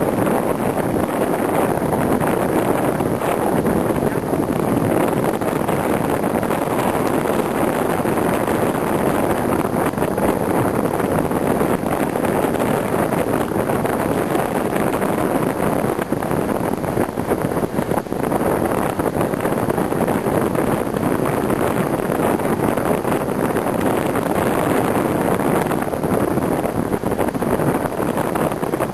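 Wind blowing across the microphone: a steady, even rushing noise with no break.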